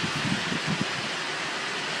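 Strong storm wind blowing steadily as an unbroken rush of noise, with a few low rumbling gusts in the first second.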